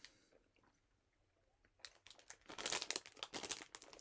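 Snack packet crinkling and rustling in a quick run of sharp crackles, starting about two seconds in.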